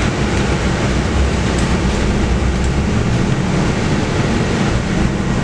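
Cabin noise of a Mercedes-Benz O500LE bus under way: its 7.7-litre six-cylinder OM936 diesel running with a steady low drone, mixed with road and tyre noise.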